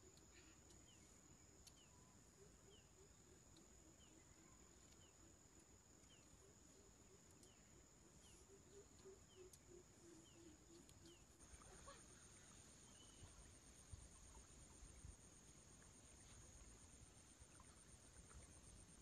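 Near silence: faint outdoor ambience with a steady high insect drone and faint, regularly repeated chirps. A second, pulsing insect drone joins about halfway through.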